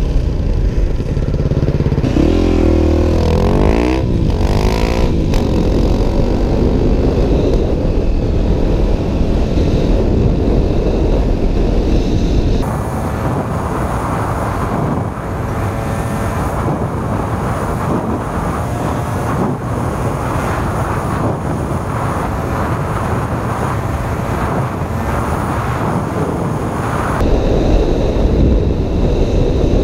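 Dirt bike engine revving hard as the rider pulls away, its pitch climbing and dropping through gear changes, then running steadily at speed with wind rushing over the helmet-mounted microphone.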